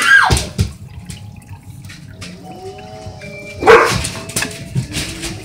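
A dog barking and whining: a loud bark sliding down in pitch at the start, a wavering whine after about two and a half seconds, and another loud bark just after it.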